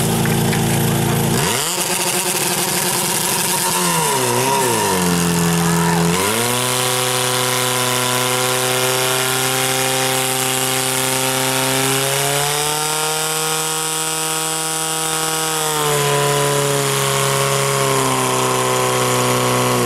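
Portable fire-sport pump's petrol engine revving up from idle to drive water through the hoses. Its pitch swings up and down for a few seconds, then holds high and steady at full throttle, stepping up once midway and easing slightly later.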